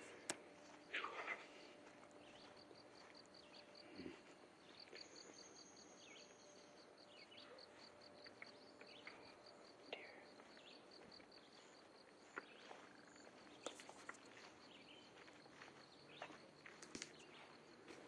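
Near silence: faint footsteps on a grass path and distant wildlife calls, including a fast, even run of high pips through the middle.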